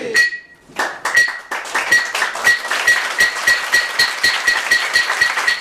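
Audience applauding, many hands clapping at a quick, fairly even pace, starting about a second in after a brief lull.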